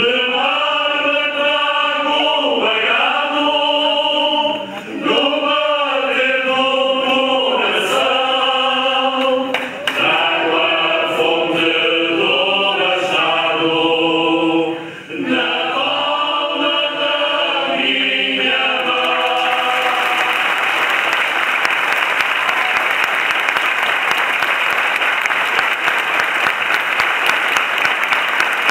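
Mixed group of men and women singing a Carnival bailinho song together in chorus. The singing ends about 19 seconds in and the audience breaks into steady applause.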